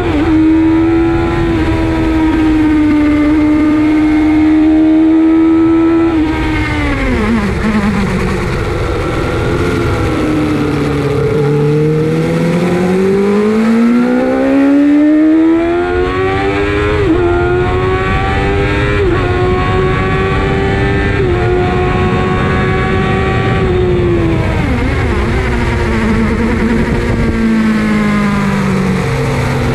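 Onboard sound of a Suzuki GSX-R750 SRAD's inline-four engine at speed: it holds high revs, drops off about six seconds in as the rider brakes and shifts down, then revs up from about ten seconds in with several quick steps at the upshifts, holds, and drops again about twenty-five seconds in before picking up near the end. Wind rush on the microphone lies under the engine.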